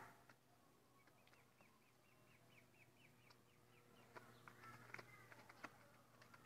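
Muscovy ducklings peeping faintly: a run of short, evenly repeated high chirps, about five a second, with scattered light clicks and a few more calls in the second half.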